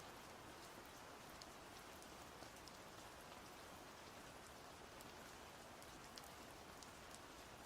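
Steady soft rain falling, an even hiss with many small drop ticks.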